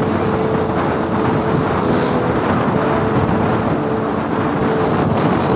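Motorcycle engine running at cruising speed, heard from the rider's seat with heavy wind noise on the microphone.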